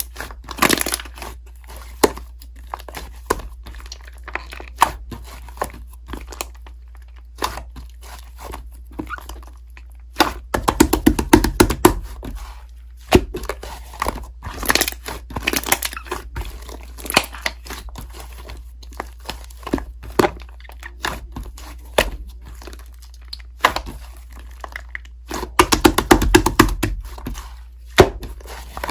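Strawberry cream-cake slime being squished and stretched by hand: sticky clicks and pops at an irregular pace, with two bursts of fast popping.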